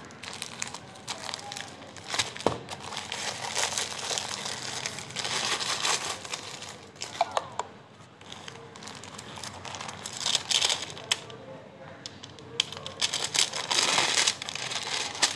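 Clear plastic wrapping on a rolled diamond-painting kit crinkling as it is handled and peeled off, in irregular bursts that are loudest about ten seconds in and again near the end.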